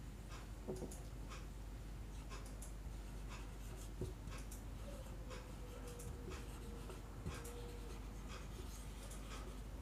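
Marker pen writing on a whiteboard: short, faint scratching strokes as letters are written, with a few light taps of the tip.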